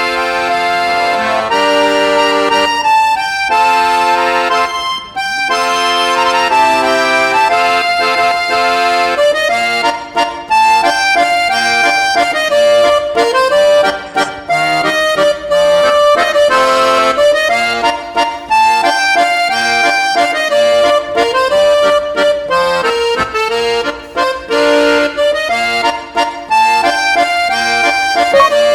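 Background music: a lively accordion-led tune with a moving melody over held chords.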